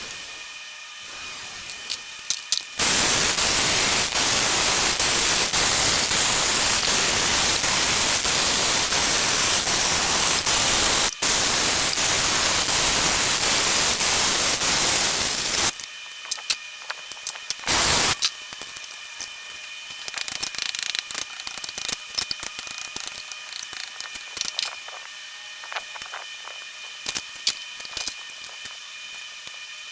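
A loud, steady hiss starts about three seconds in and runs for about thirteen seconds, broken once for an instant, then cuts off; a second short burst of hiss follows about two seconds later. Faint light clicks and taps are heard around it.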